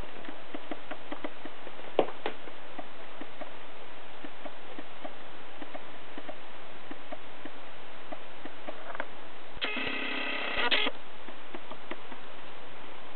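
Steady hiss with faint irregular ticking and a sharp click about two seconds in. A steady electronic tone with several even overtones, like a phone ringing, sounds for a little over a second near the end.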